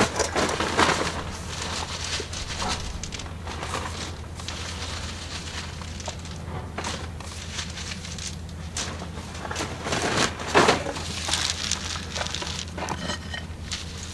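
Irregular rustling and crunching of a plastic bag of potting material being rummaged through and handled, loudest about a second in and again about ten seconds in, over a low steady hum.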